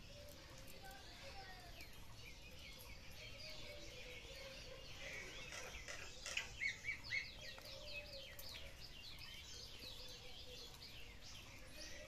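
Small birds chirping and twittering over faint outdoor background noise, with a busier run of quick chirps in the middle.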